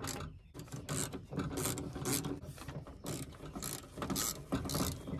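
Socket ratchet clicking in quick runs with short pauses between them as it loosens the bolts holding a window regulator motor inside a car door.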